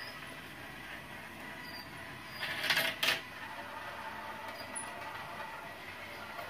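Marbles rolling along plastic twin-rail roller-coaster track, a steady light rolling rattle, with two short louder swells of rolling noise about two and a half and three seconds in.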